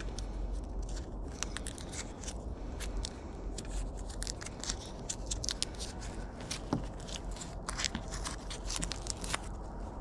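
Hands sorting through a Yamaha Banshee wiring harness: a steady run of small clicks, crackles and rustles from the wires and their tape being handled.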